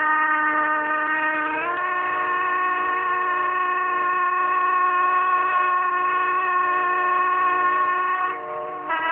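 Background music of long held notes, with a step up in pitch about two seconds in and a brief dip near the end.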